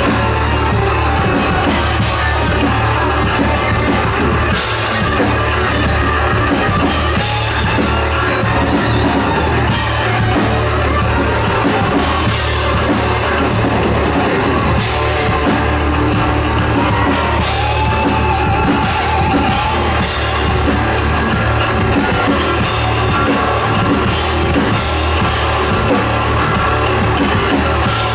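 Thrash metal band playing live, loud: distorted electric guitars and bass over a fast-hit drum kit in an instrumental passage with no vocals.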